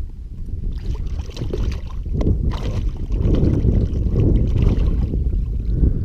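Wind rumbling on an action camera's microphone, with water splashing and dripping against the side of a fishing kayak as a redfish is let go back into the water, mostly in the first few seconds.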